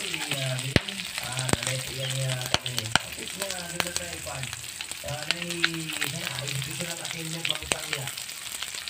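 Pork, red onion and garlic sizzling in hot oil in a frying pan, with a wooden spoon stirring and knocking sharply against the pan several times.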